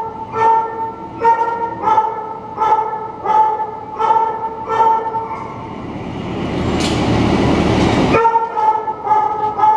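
A dog barking over and over at an even pace, about one and a half barks a second, each bark at the same pitch. Midway a rushing noise swells for about two seconds and cuts off abruptly, then the barking picks up again.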